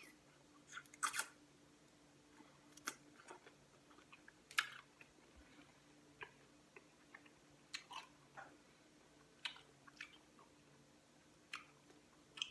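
Boiled crawfish being eaten by hand: scattered short cracks and clicks of shells pulled apart and wet mouth smacks of sucking and chewing, about a dozen in all. A faint steady low hum lies underneath.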